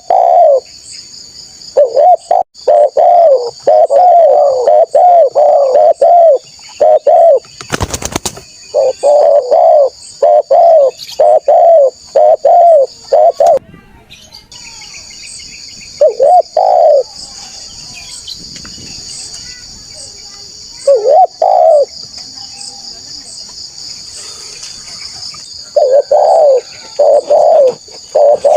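Spotted dove cooing in phrases of rapid deep coo notes, pausing and starting again several times, over a steady high insect drone. A short loud crackle about eight seconds in.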